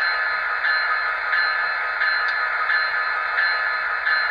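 Recorded locomotive bell from a LokSound Select sound decoder in an HO-scale EMD F40PH model, played through the model's small speaker: a steady ringing, about three strikes every two seconds.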